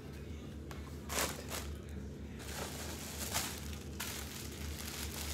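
Clear plastic bag with a folded garment inside crinkling and rustling as it is handled, in short spells about a second in and again around three seconds in.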